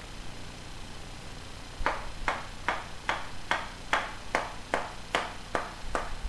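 Hammer driving a nail into wood: a steady run of about eleven sharp blows, roughly two and a half a second, starting about two seconds in.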